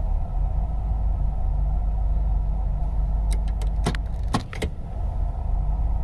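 1993 Ford Econoline van's engine idling, heard from inside the cab, a steady low rumble; the engine is running rough and rich. Several sharp clicks about three to four and a half seconds in as the automatic's column shifter is moved through the gears.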